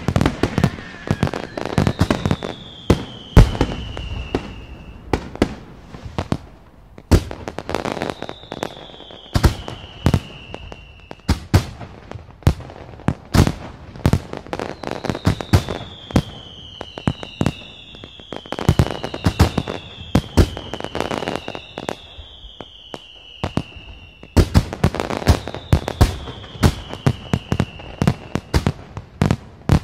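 A fireworks display: aerial shells bursting in rapid, irregular bangs, with several whistles gliding down in pitch over a couple of seconds each, overlapping in the middle stretch.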